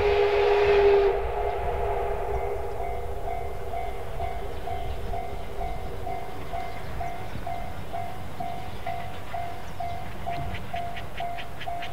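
A D51 steam locomotive's whistle sounds as a loud chord and cuts off about a second in. A level-crossing alarm bell follows, dinging steadily about twice a second. Near the end a fast run of short hissing beats, about four a second, joins in.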